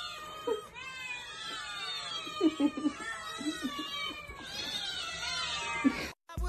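Many caged cats meowing at once, their calls overlapping at different pitches; the sound cuts off suddenly near the end.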